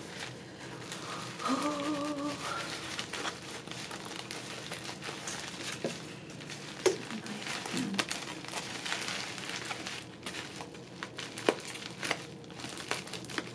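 Bubble wrap crinkling and rustling as a wrapped package is handled and squeezed, with scattered small clicks and crackles.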